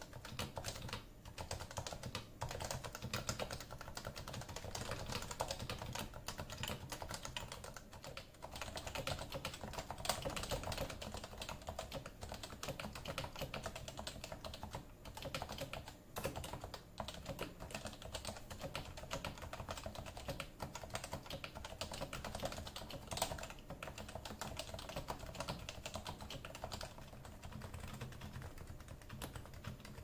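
Fast touch-typing on Topre electro-capacitive keyboards with stock 45 g switches, a steady stream of key strokes: first a Leopold FC980C, then a Leopold FC660C.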